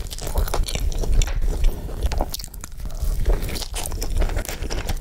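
Close-miked eating sounds of a person biting and chewing a burger, a steady run of irregular small crackles and clicks.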